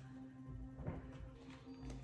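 Soft background music of steady held tones, with a few light taps and rustles of tarot cards being handled.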